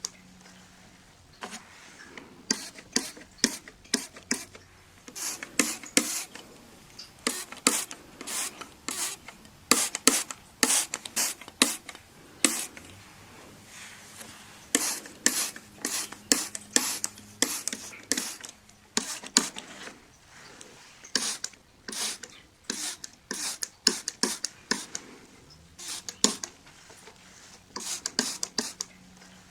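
A window being cleaned: a run of short, hissy bursts of glass-cleaner spray and rubbing on the glass, coming one or two a second at an uneven pace.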